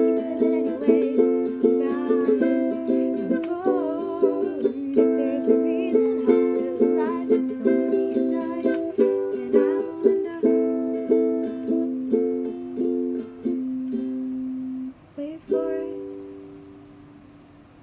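Music played on a plucked string instrument: strummed chords in an even rhythm that ends on a final chord, which rings out and fades.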